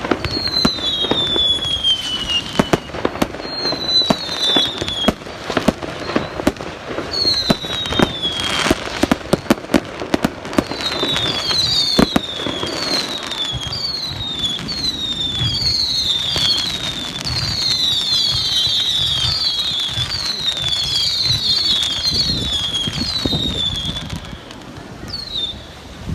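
Fireworks display: a rapid run of sharp bangs and crackles, with many whistling fireworks, each whistle falling in pitch. The whistles pile up thickly in the second half.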